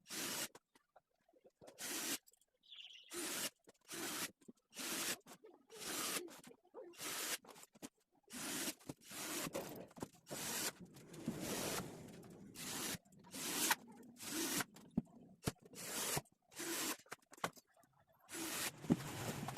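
Short scraping or rubbing strokes from hand work on the cabinet panels, coming irregularly one or two a second.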